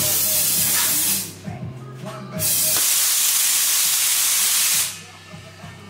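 Aerosol spray can hissing in two long bursts into a stretched tire, priming it with flammable spray for a flame bead seat.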